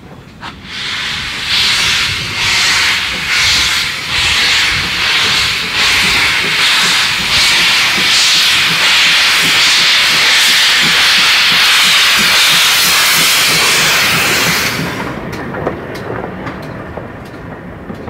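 GWR 9300-class 2-6-0 Mogul steam locomotive No. 9351 moving off with its cylinder drain cocks open, blowing a loud hiss of steam. The hiss comes in quick pulses at first, then runs steady, and cuts off sharply about fifteen seconds in.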